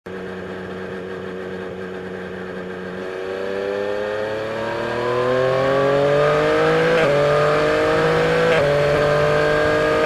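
Yamaha Tracer 900's 847 cc inline-three engine under way, running steadily at first and then accelerating hard from about three seconds in, rising in pitch and getting louder. There are two brief breaks in the rising note about seven and eight and a half seconds in, as the rider shifts up.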